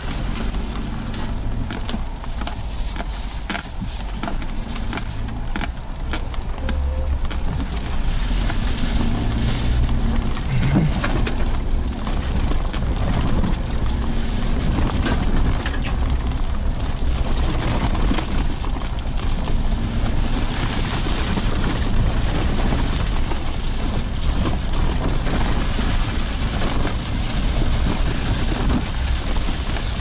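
Suzuki Jimny Sierra driving along a rough dirt road: its engine running steadily under a low rumble from the tyres and suspension, with scattered knocks as it goes over the bumpy surface.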